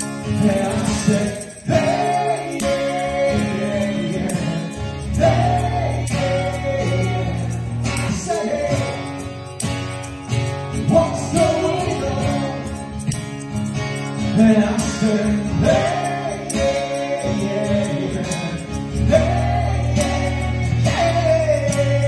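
A live acoustic duo: a woman sings lead through a microphone over a strummed acoustic guitar.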